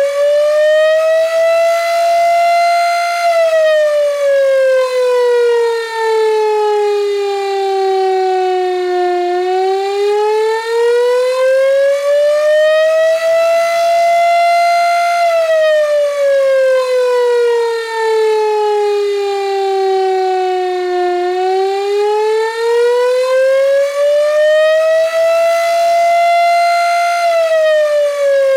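Gryphon 2048 electric motor siren sounding an attack signal: one loud tone that winds up, holds briefly at the top, then slides back down, about twelve seconds per rise and fall, peaking three times.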